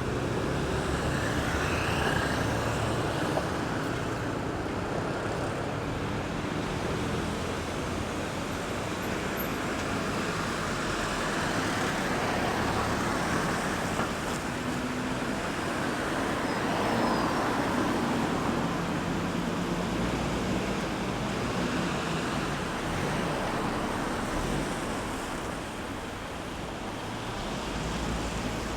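Steady road traffic: cars and other vehicles passing one after another, engine hum and tyre noise rising and falling as each goes by.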